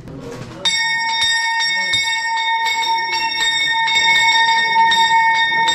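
A bell rung rapidly and continuously, starting suddenly just under a second in, at several strokes a second over a steady ringing tone. It is the market's opening bell, signalling that selling may begin.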